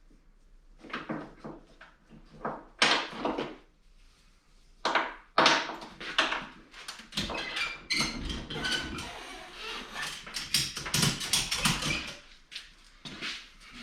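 Knocks, clanks and scraping of a snowmobile skid frame being worked up into the tunnel: a few separate knocks, then a denser run of rattling and scraping with some metallic ringing through the middle.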